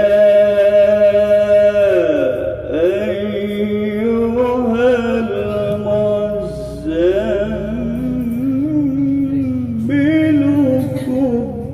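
A male Qur'an reciter chanting tilawah, drawing a verse out in long melismatic held notes. The notes waver with ornaments and slide between pitches, with short breaths between phrases.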